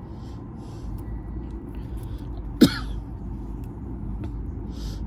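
A single short, sharp vocal sound, falling in pitch, about two and a half seconds in, over a steady low rumble and faint rustling.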